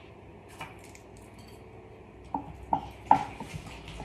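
Metal wire whisk knocking against a glass mixing bowl while whisking tahini with lemon juice: about four sharp clinks, starting about two seconds in, the third the loudest.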